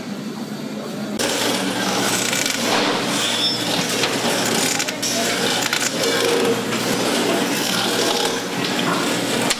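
About a second in, the sound changes to steady workroom noise. Oyster shells clink and scrape against each other and against a shucking knife as oysters are opened by hand.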